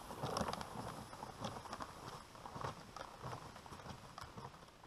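Snowshoe footsteps crunching in snow at a steady walk, with a loaded pulk sled dragging behind, getting quieter as they move away.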